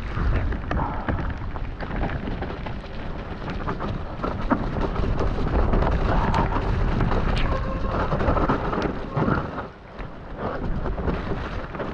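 Mountain bike descending fast over wet gravel and then muddy singletrack: a loud rumble of wind buffeting the action camera's microphone, with tyre crunch and many quick rattling knocks from the bike over the rough ground. The noise briefly drops away about ten seconds in.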